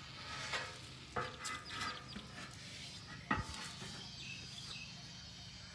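Scattered dry rustles and crackles over the first two seconds, then one sharp knock a little past three seconds, the loudest sound, over a faint steady low hum.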